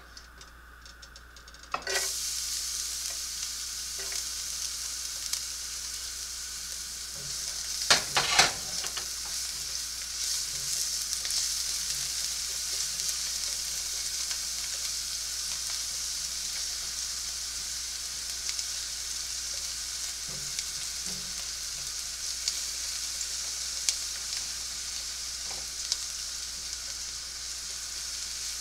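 Garlic frying in coconut oil in a pan, a steady sizzle that starts suddenly about two seconds in, while a spatula stirs it. A few loud knocks of the spatula against the pan come about eight seconds in, with light scrapes and taps later.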